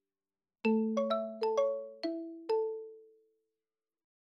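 Background music: a short, light melody of about seven struck, chime-like mallet notes starting just under a second in, each ringing out and fading, with the last note dying away before the end.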